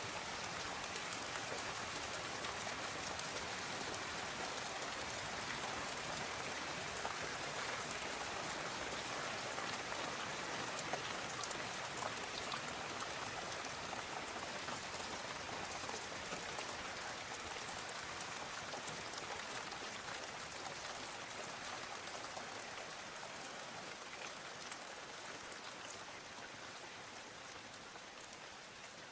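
Steady rainfall: an even hiss of rain with many fine drop patters on surfaces, easing slightly in level over the last several seconds.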